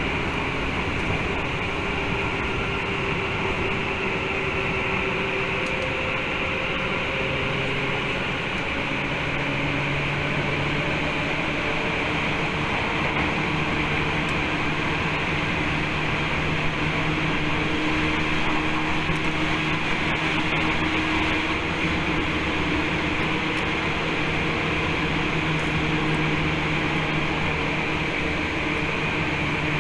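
Running sound inside a Tokyu 8500 series electric train at speed: a steady rumble of wheels on rail, with motor and gear tones whose pitch shifts a few times as the speed changes.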